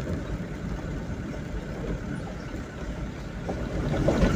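Steady low engine rumble and road noise from a vehicle driving along a rough dirt road, getting louder near the end.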